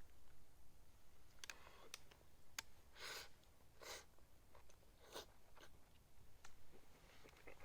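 Person eating sukiyaki: quiet chewing, with a few short louder mouth or crunching sounds about three, four and five seconds in and scattered light clicks.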